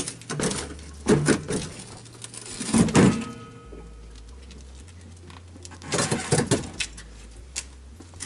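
Honda Forza MF08 scooter being taken off its steel centre stand: a series of knocks and scuffs, the loudest about three seconds in, followed by a brief metallic ring, then more knocks about six seconds in.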